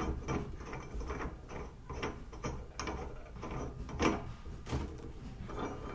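Large steel threaded screw being turned by hand through a freshly welded nut on a bottle jack's ram, the threads scraping with a run of small uneven clicks and one louder knock about four seconds in. The screw turns freely through the nut.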